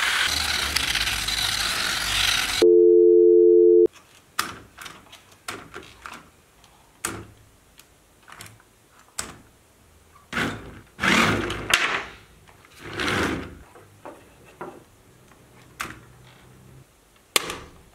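A small RC car's motor and gears whirring for the first couple of seconds. Then a loud, steady electronic beep tone of about a second. After that come scattered clicks and knocks as a toy RC truck and its remote control are handled.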